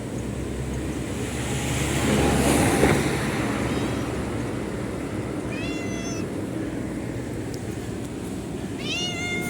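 Cat meowing twice: a short meow about halfway through and a longer one near the end. This is over a steady background of traffic noise, with a passing vehicle swelling and fading about two to three seconds in, the loudest part.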